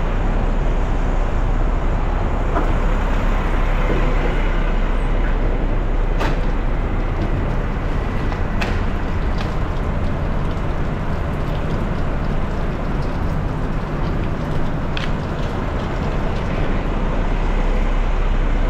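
Front-load garbage truck engine running steadily, with three sharp knocks: one about six seconds in, one a few seconds later, and one near the end.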